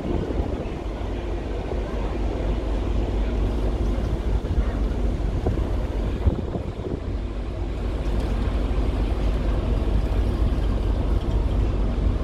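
Wind buffeting the microphone: a steady low rumble with a faint hiss over it, unchanging throughout.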